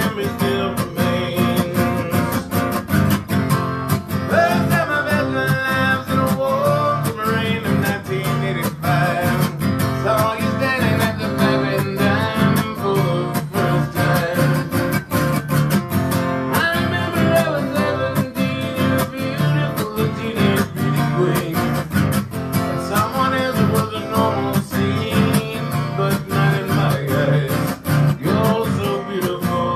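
A man singing a ballad while strumming an acoustic guitar steadily.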